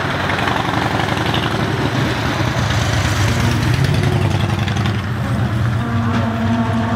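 Steady rumble of road traffic and engines, with a continuous noisy wash over a strong low hum. A steady pitched tone joins near the end.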